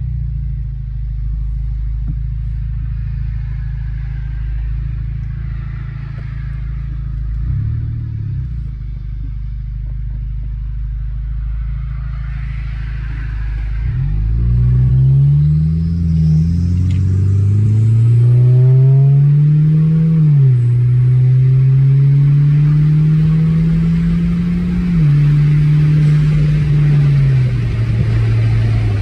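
Audi A4 B8 TFSI's turbocharged four-cylinder engine running with its exhaust downpipe re-machined to seal a leak. Steady low engine hum for about half the time, then the revs climb, drop back, climb and drop again like upshifts, and fall away near the end.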